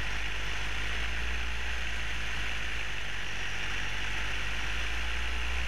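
Air Conception 130 two-stroke paramotor engine and propeller running steadily at reduced power during a slow, low descent, with a steady hiss over the engine hum.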